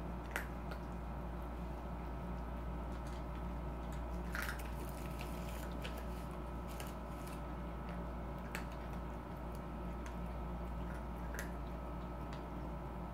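Cats eating corn kernels: a few scattered, short wet clicks and smacks of chewing, heard over a steady hum.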